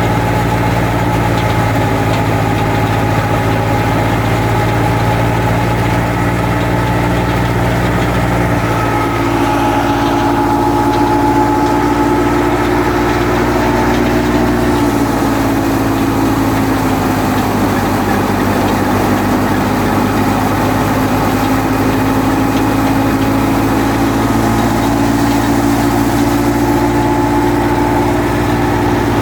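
Wheat thresher running under power: a loud steady machine drone with several held whining tones that shift in pitch about nine seconds in and again about fifteen seconds in.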